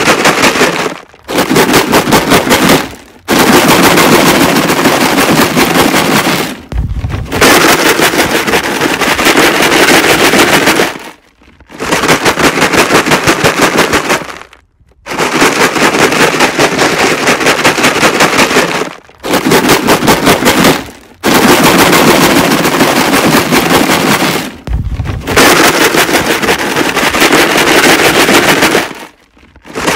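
Rocks rattling hard inside a plastic jug as it is shaken, in loud bursts of rapid clattering a few seconds long, broken by about nine short pauses.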